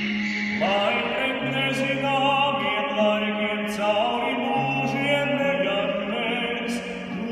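Male voice singing a slow, sustained melody with vibrato, accompanied by a classical guitar playing steady low notes underneath.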